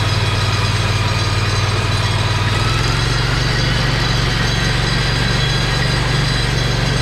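Predator 670 V-twin engine running steadily. About two and a half seconds in, its note steps up slightly as the engine speed picks up a little.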